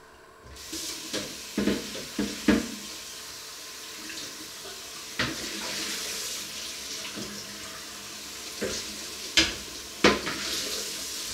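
Water running from a kitchen tap into a sink, turned on about half a second in and shut off at the end, with several knocks and clatters of dishes or pots in the sink.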